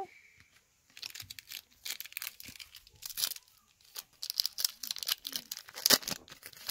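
Baseball card pack wrapper crinkling and being torn open by hand: a string of irregular crackles, the loudest near the end.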